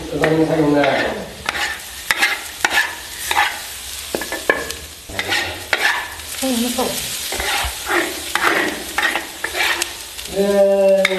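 Metal spatula scraping and clanking against an iron wok while dried pickled greens sizzle and fry. Near the end water is poured into the hot wok and the sizzling grows louder.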